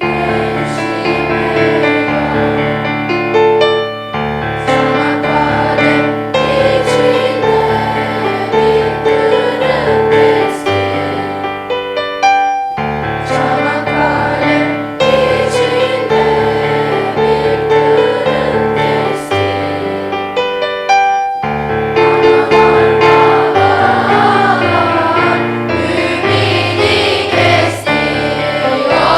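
A choir singing with instrumental accompaniment over a regular bass line, with a few brief pauses between phrases.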